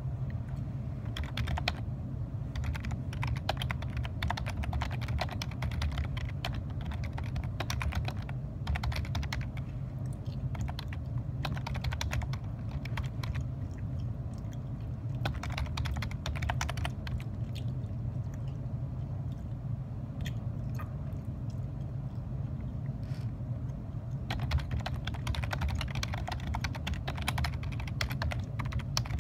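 Typing on a computer keyboard: fast runs of key clicks in bursts, with pauses between them, over a steady low hum.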